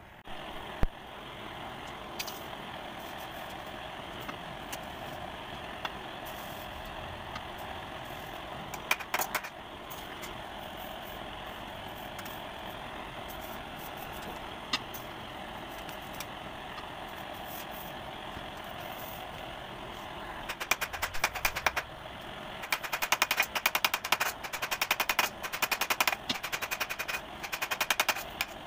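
Rapid tapping on brass sheet in quick bursts of many strikes a second, starting about two-thirds of the way in, over a steady hiss. Before the bursts there are only a few single clicks.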